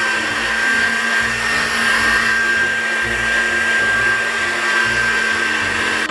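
Electric meat grinder's motor running steadily: an even whir with a steady high whine.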